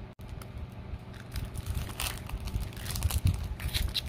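Thin clear plastic cake tray crinkling and clicking close to the microphone, handled while someone chews a mouthful of Bakewell slice.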